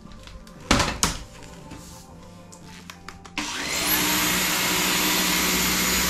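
Samsung Jet 70 cordless stick vacuum switched on a little past halfway: its motor whines up to speed with a steady rush of suction, then begins to wind down at the very end. A single sharp knock about a second in.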